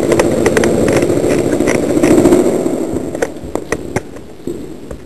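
Airsoft guns firing in long automatic bursts: a dense mechanical rattle with many sharp cracks, easing off after about three seconds.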